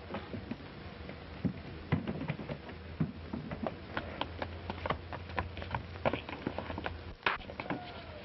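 A quick, irregular run of knocks and clatters of varying loudness over a steady low hum from an old optical film soundtrack, with a short falling tone near the end.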